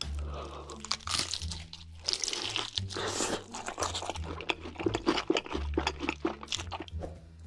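Crispy battered fried chicken drumstick being bitten and chewed: many sharp, rapid crunches of the breading one after another.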